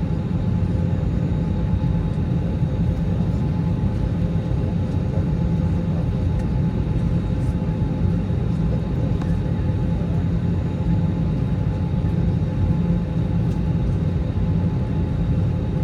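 Steady low rumble of an Airbus A321neo's cabin with the aircraft on the ground, with faint steady hums from its engines and air systems.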